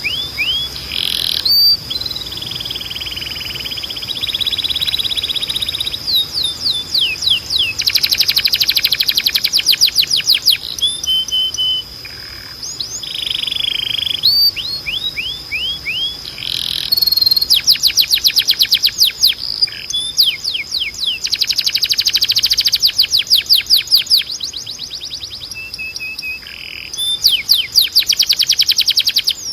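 Timbrado canary singing: phrases of quick downward-sliding notes and very fast rolls of repeated notes, broken by short held whistles, one phrase after another.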